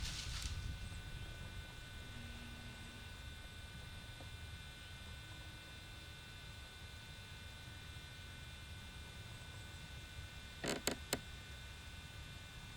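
Faint, steady electronic hum with several thin high whine tones. Three quick sharp clicks come a little before the end.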